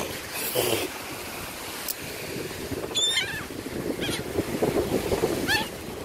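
Laughing gulls calling: a few short, high, wavering cries about three seconds in, again a second later and near the end, over a steady rush of wind and surf.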